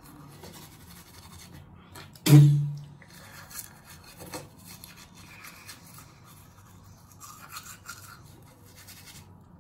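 A manual toothbrush scrubbing teeth, a faint, even bristly brushing. About two seconds in there is one sudden loud knock with a low ringing tail.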